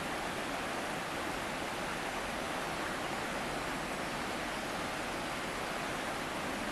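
Mountain stream rushing steadily over rocks, an even splashing hiss with no breaks.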